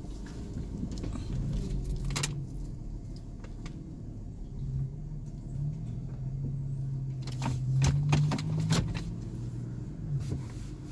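Toyota 4Runner's engine running steadily at low speed on an off-road trail, heard from inside the vehicle, swelling louder around eight seconds in. Sharp knocks and rattles sound about two seconds in and in a quick cluster from about seven to nine seconds.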